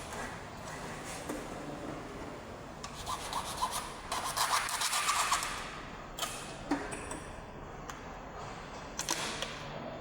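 Rubbing and scraping, busiest and loudest about three to five seconds in, with a few sharp clicks afterwards.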